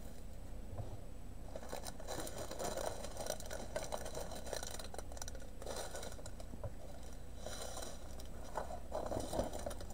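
Plastic packaging crinkling and rustling as a plastic-covered diamond painting canvas and its kit bags are handled. It comes in two stretches of crackly rustle with a short lull between them.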